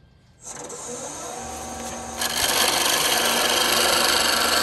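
Shopsmith wood lathe starting to run about half a second in. About two seconds in, a roughing gouge bites into the spinning spindle blank with a loud, steady, rough scraping, knocking down the flat spots that remain before the blank is round.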